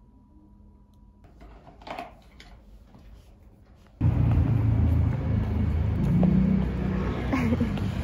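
Faint room tone with a thin steady hum, then an abrupt cut about four seconds in to a loud, uneven low rumble of outdoor street noise buffeting the microphone.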